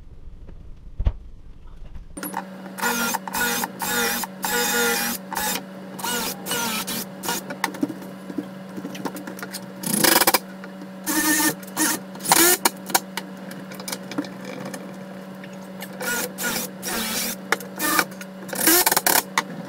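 Cordless drill driving screws into a clamped wall cabinet in repeated short bursts with clicks between them, over a steady low hum that starts about two seconds in.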